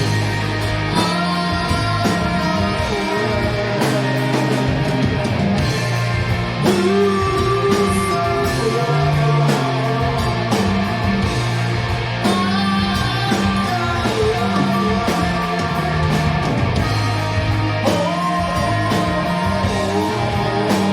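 Stoner rock band playing live: heavy guitars, bass and drums, with a singer's long sung lines coming in several times.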